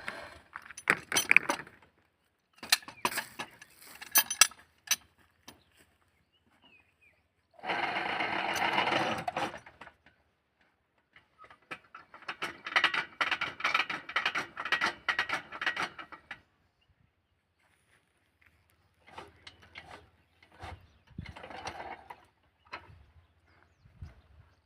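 Intermittent metalworking noise: bursts of crackling and rattling, each a second to a few seconds long, with short quiet gaps between them.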